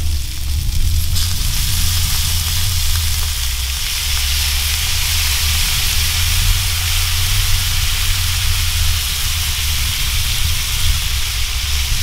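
Kokanee salmon fillets frying in a pan on a portable butane stove, sizzling hard as beer is poured in; the hiss grows stronger about a second in and stays steady. A steady low rumble runs underneath.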